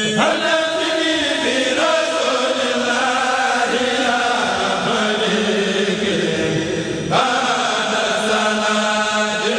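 Murid kurel of men's voices chanting an Arabic khassida through microphones, in a steady melodic recitation. A new line comes in sharply about seven seconds in.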